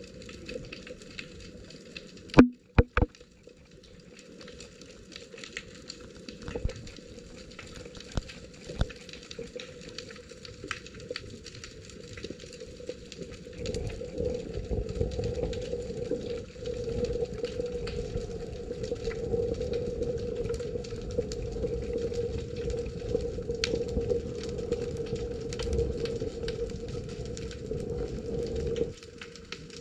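Underwater sound picked up by a submerged camera: a constant crackle of fine clicks, with two sharp knocks about two and a half and three seconds in. About halfway through a steady low hum with a rumble under it joins and runs on, dropping out briefly near the end.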